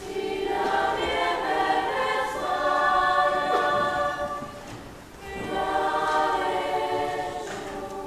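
Children's and youth choir singing a cappella, sustained chords in several voice parts. One phrase ends about five seconds in and, after a short breath, the next phrase begins.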